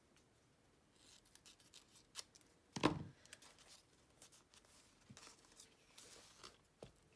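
Faint snips of scissors and paper being handled on a tabletop, with one sharper knock about three seconds in as the scissors are set down on the table.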